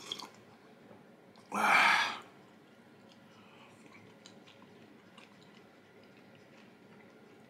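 A man's loud sigh, one breath out of under a second about a second and a half in, after a mouthful he has just called the best. Faint small chewing clicks follow.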